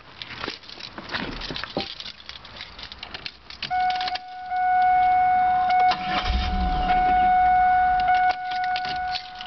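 Keys jangling and clicking, then a steady high-pitched warning tone from the car begins. Under the tone, the starter cranks the Camaro's 3.8-litre V6 for a few seconds without it starting.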